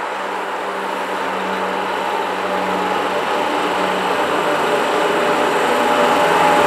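A pair of Class 86 electric locomotives approaching at the head of a Freightliner container train, their traction motors and cooling fans giving a steady hum with a rushing noise that grows steadily louder as they draw near.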